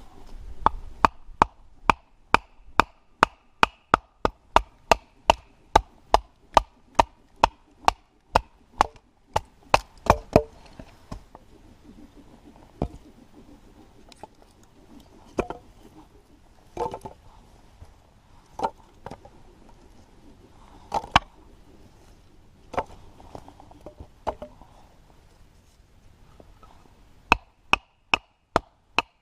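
Firewood being split by batoning: a wooden baton striking the spine of a knife driven into the wood, in sharp knocks about two a second, then slower, spaced strikes after about ten seconds, and a quick run of knocks again near the end.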